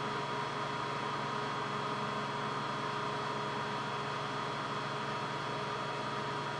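Steady electrical hum with an even hiss and a few constant tones, unchanging throughout: background hum from the running bench equipment, with no shots or valve clicks.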